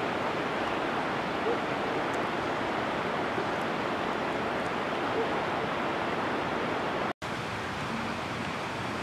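Steady rushing of a rocky river, an even wash of water noise that drops out for an instant about seven seconds in.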